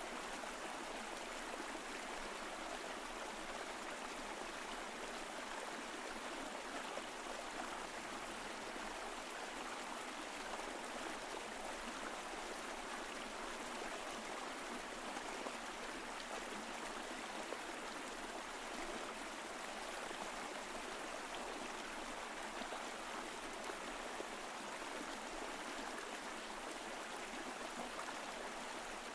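Mountain stream flowing over rocks, a steady rushing and gurgling of water.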